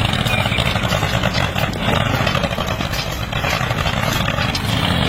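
Small engine of a homemade mini tractor running steadily, a low rumble with a rapid clattering rattle.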